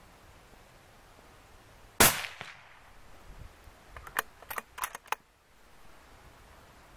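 A single rifle shot about two seconds in, with a short echoing tail, followed about two seconds later by a quick run of five or six sharp clicks.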